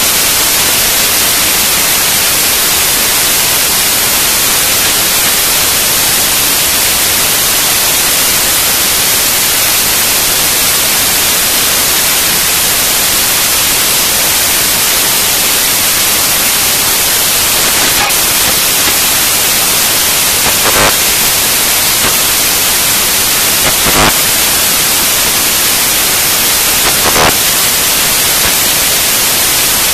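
Loud, steady static hiss like white noise, even and strongest in the highs. Four faint knocks come about three seconds apart in the second half.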